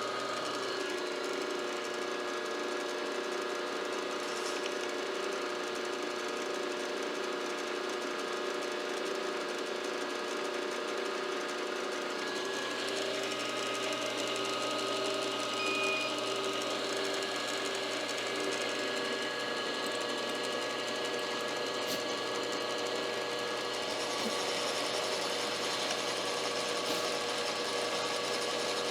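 Milling machine running steadily, a machine hum made of several steady tones; about twelve seconds in, the mix of tones shifts.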